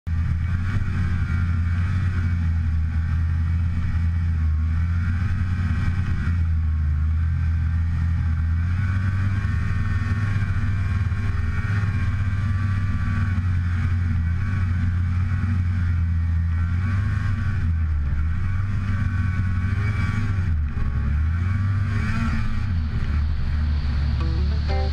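Snowmobile engine running under way through powder snow, steady and loud, its pitch rising and falling.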